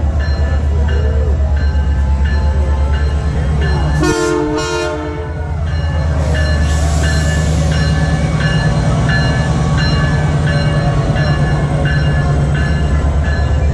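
Canadian Pacific Holiday Train arriving: a diesel locomotive running with a loud steady low drone while its bell rings steadily. A short horn blast comes about four seconds in.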